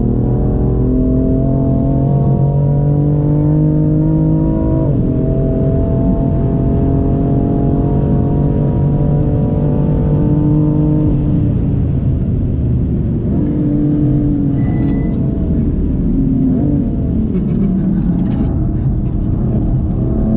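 BMW M4 Competition's twin-turbo straight-six heard from inside the cabin under hard acceleration, climbing steadily in pitch with a quick gear change about five seconds in. About halfway through the revs drop as the throttle eases, then climb again and dip once more before pulling hard near the end.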